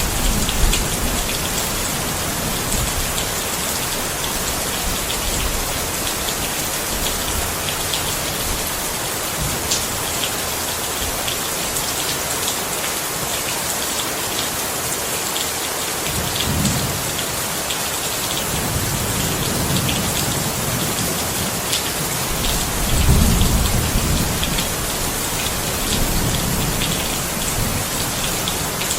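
Steady rain falling, with many small drop clicks. In the second half, low thunder rumbles roll in several times, the strongest just before the end.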